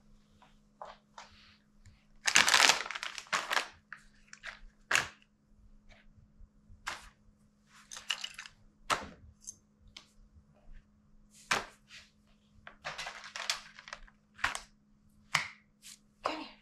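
Handling noises as grooming things are laid out on a towelled floor: a loud spell of fabric and plastic rustling a little over two seconds in, then a run of irregular clicks, knocks and crinkles as a brush, a wipes packet, a bottle, scissors and a treat bag are set down.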